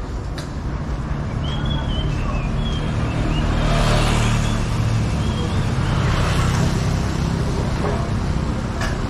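Street traffic: engines running steadily, swelling as a motorcycle passes close by about four seconds in. A few short high chirps come over it in the first half.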